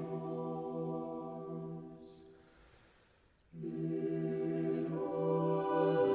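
Background music of slow, long-held choir-like chords. The music fades away a little past the middle, and a new chord comes in suddenly about a second later.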